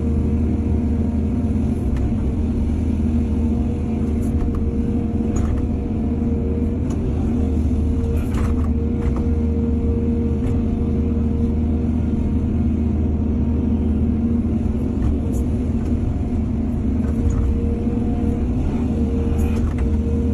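Excavator's diesel engine running steadily under load with a steady hydraulic whine, and a few short knocks of the bucket or machinery.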